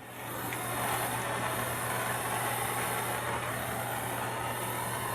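Plumber's gas torch flame burning with a steady hiss while heating a copper pipe joint for soldering, building up over the first second and then holding even.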